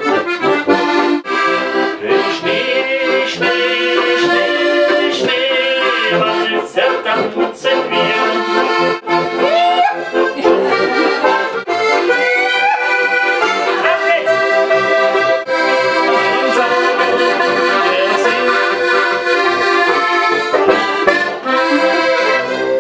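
Two diatonic button accordions (Steirische Harmonika, one a Zupan) playing a lively traditional Alpine folk tune together. The full chords run over a steady beat of short bass strokes.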